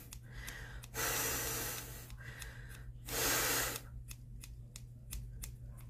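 Scissors snipping through synthetic wig hair, with two puffs of breath blown out to clear the cut hairs, about a second in and about three seconds in. In the last two seconds comes a quick run of sharp snips, roughly four a second.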